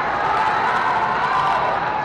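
Spectators at a high school girls' volleyball match cheering and shouting together, the cheer tapering off.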